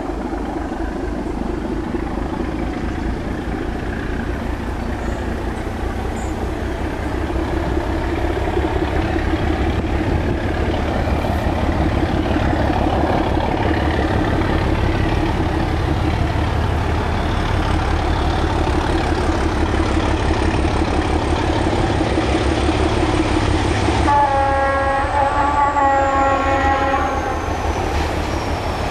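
Diesel engine of a Czechoslovak class 749/751 mainline diesel locomotive running with a heavy low rumble, growing slowly louder as it approaches. About three-quarters of the way through, its horn sounds one chord-like blast lasting about three seconds.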